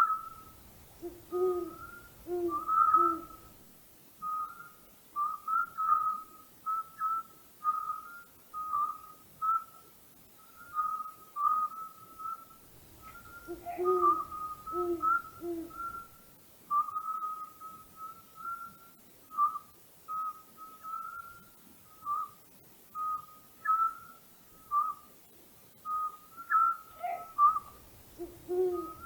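Owl hooting in series of three low hoots, heard twice and starting again near the end, over a steady run of short, higher whistled notes repeating about twice a second.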